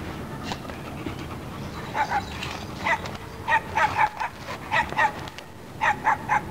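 Rubber squeaky toy squeaking in quick clusters of two or three short squeaks as a dog chomps on it, starting about two seconds in.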